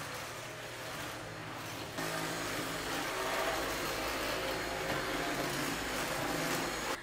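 Cordless stick vacuum cleaner running steadily on a hard floor, louder from about two seconds in as the cleaner head works along the baseboard.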